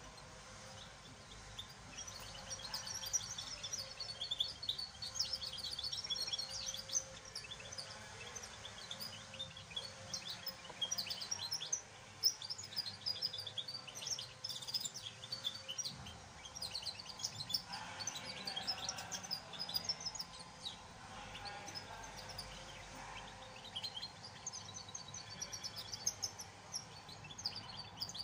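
A young male songbird, about two months old, singing a long, fast twittering song of high chirps, with a short pause around the middle.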